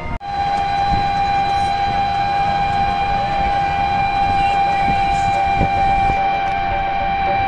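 A single loud, steady horn-like tone held unchanged for about seven seconds, over the low rumble of a moving auto-rickshaw. It starts suddenly and cuts off near the end.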